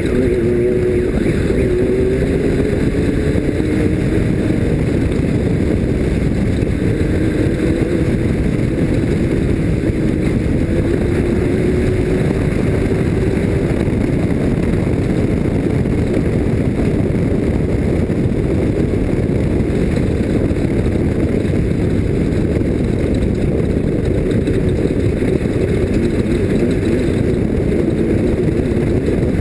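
Off-road race vehicle's engine running at speed, its pitch rising and falling, under a loud, steady rush of wind and terrain noise.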